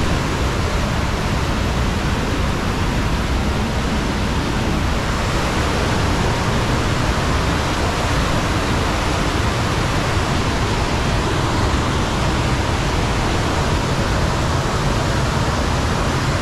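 Steady rush of falling water from a waterfall inside a grotto.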